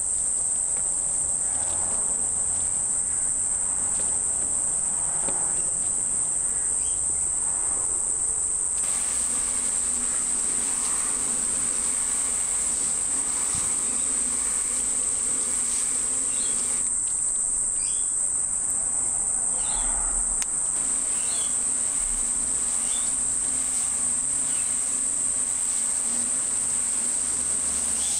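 Steady, high-pitched drone of insects such as crickets or cicadas, unbroken throughout, with a few faint short chirps in the second half.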